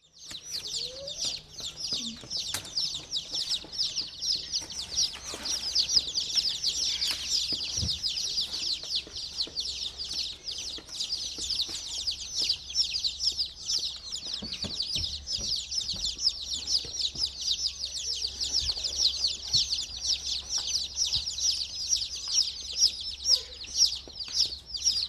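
A crowd of baby chicks peeping continuously, many short, high, falling peeps overlapping.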